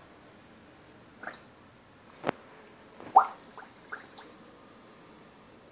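Short bubbling blips as air is blown through a straw into a ceramic pet bowl of water: a handful of separate ones, the strongest about three seconds in, with one sharp click a little before it.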